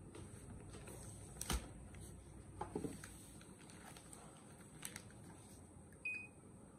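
Plastic bags of flour handled on a counter with a few light knocks, then a handheld barcode scanner gives one short high beep near the end as it reads a bag.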